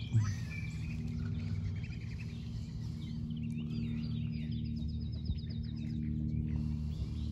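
Small birds chirping, with a fast trill of repeated high notes about halfway through, over a steady low hum. A brief thump comes just after the start.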